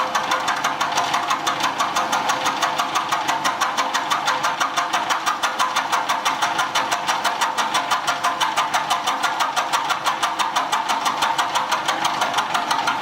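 Milling machine cutting into a cast-iron part, with the cutter's teeth ticking evenly about seven or eight times a second over the steady run of the machine.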